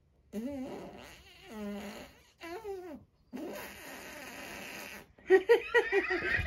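Cartoon fart sound effects: a few short pitched ones that wobble up and down, then a longer raspy one. Laughing starts near the end.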